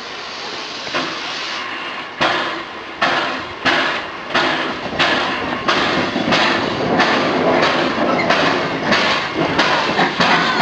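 1877 Avonside-built NZR L class steam tank engine pulling away: a soft steam hiss at first, then sharp exhaust chuffs from about two seconds in, around one and a half a second and gradually quickening as she gathers speed.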